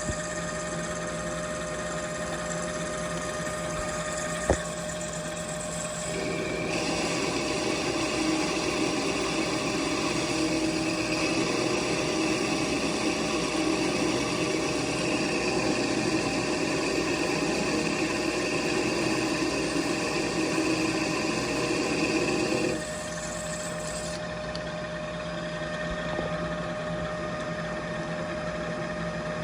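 Machine tool running steadily, with a cut under way from about six seconds in until about twenty-three seconds in that adds a coarse, rough cutting noise. The cut is still chattering at a raised spindle speed. A single sharp click about four seconds in.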